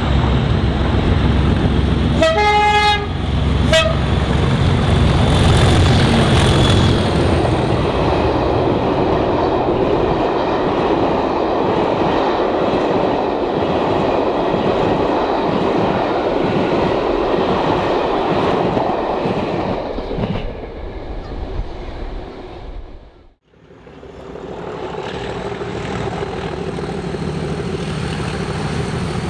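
Class 37 diesel locomotives pass at speed, engines running loud, with a horn blast about two seconds in and a short toot just after; the hauled coaches then rumble and clatter past and fade away. After an abrupt cut near the end, another diesel locomotive is heard approaching, its engine running steadily.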